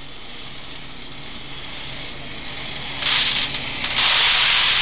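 Lead shot poured into a glass beaker and spilling over into a pan: a faint hiss at first, then from about three seconds in a loud, dense hiss of pellets that falters briefly and then runs steady.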